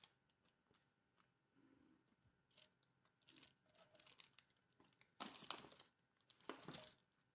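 A kitchen knife scraping and cutting through a sheet of rolled-out dough on baking paper, with faint crinkling of the paper. Two louder rustles come after about five seconds.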